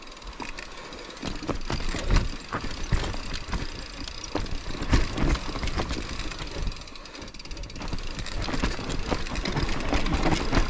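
Mountain bike descending a steep trail: tyres running over loamy dirt, with irregular knocks and rattles from the bike, getting louder near the end.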